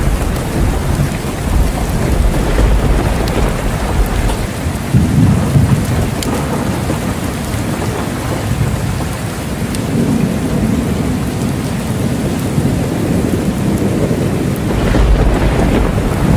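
Steady rain with thunder rolling underneath, the low rumbles swelling several times, most strongly about five seconds in and again near the end.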